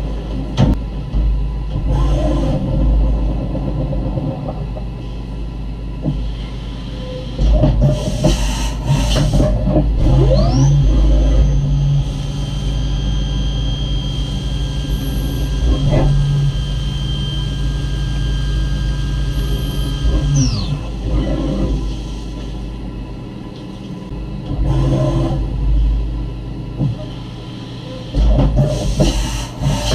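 Okuma M560-V vertical CNC mill cutting a 7075 aluminum part under flood coolant: the spindle's whine glides up in pitch about ten seconds in, holds steady while it cuts, and glides back down about twenty seconds in. Underneath runs a steady low machine hum and the noisy spray of coolant and chips, with a few louder noisy spells.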